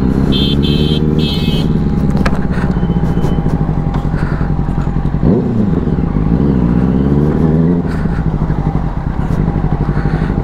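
Motorcycle engine running as the bike rolls in slowly, its note falling off the throttle, with a quick throttle blip about five seconds in and then low-rev running. Three short high-pitched beeps near the start.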